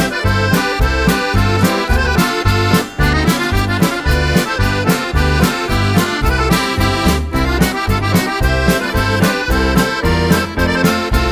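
Accordion playing a lively polka, its bass notes and chords alternating on a steady beat under the melody.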